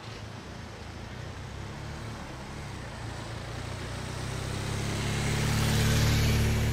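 A large touring motorcycle's engine draws closer and passes close by with a steady note and tyre hiss, growing louder to a peak about six seconds in. A car follows behind it.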